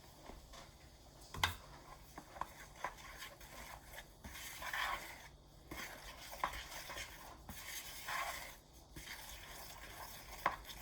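A spoon stirring flour into a thick, sticky gelatin and corn syrup mixture in a bowl, with scattered knocks of the spoon against the bowl, the sharpest about a second and a half in, and two longer scrapes near the middle and later on.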